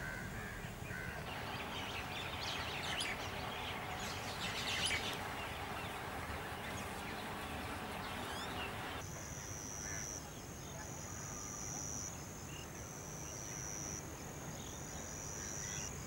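Outdoor bird calls: a burst of many short chirps and calls over a steady low background hum. From about nine seconds in, the sound changes abruptly to a steady high buzz that swells and fades about once a second.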